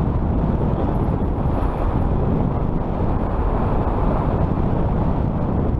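Steady wind rush on the microphone while riding a fat-tire electric bike, an even low rumbling noise with no clear motor tone.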